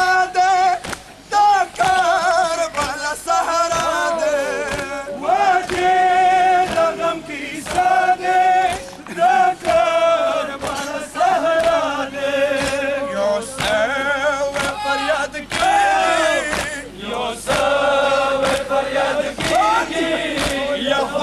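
Men's voices chanting a Pashto mourning lament (nauha) together, held wavering notes, with rhythmic slaps of hands beating on chests in matam marking the beat.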